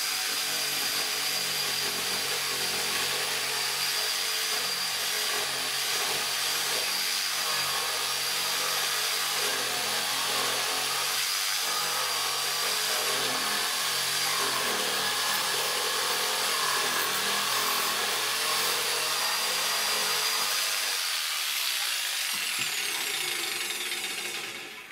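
Electric jigsaw running steadily as it saws through a wooden board, with a constant high motor whine. Near the end the saw is switched off and the motor winds down with a falling whine.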